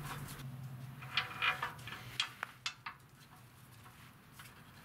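Clicks and rubbing of a gloved hand handling parts on a scooter engine next to its air-cleaner cover. A cluster of small clicks comes about a second in, then a few single sharp clicks. A low hum underneath fades out early.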